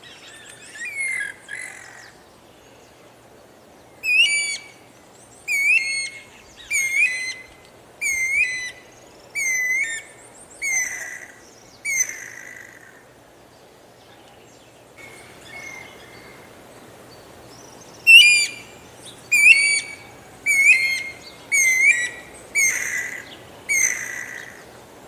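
Guira cuckoo (anu-branco) calling: a run of loud, slurred whistled notes, about one every second and a half. It pauses for several seconds near the middle, then starts a second run.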